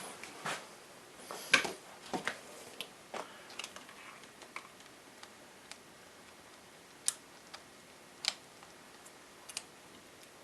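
Scattered small clicks and taps of hands handling laptop parts while the new LCD panel's display cable is plugged in, busier in the first few seconds and then a few isolated clicks.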